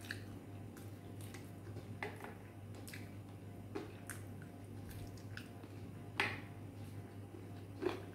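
Wet mouth sounds of a person eating chicken curry and rice by hand: chewing, lip smacks and scattered soft clicks, the loudest about six seconds in and just before the end, over a steady low hum.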